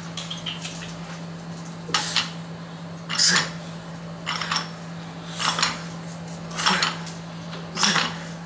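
Iron weight plates on plate-loaded dumbbells clinking with each curl rep, about once a second, over a steady low hum.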